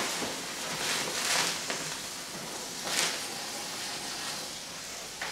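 Cut-open lithium battery burning, its lithium metal alight and jetting flame with a steady hiss that swells briefly about a second in and again around three seconds in.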